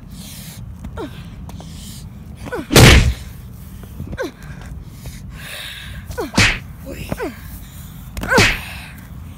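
Wind rumble and handling noise on a phone's microphone as it is swung about. Three sudden whooshing hits come through, about three, six and eight seconds in, the first the loudest.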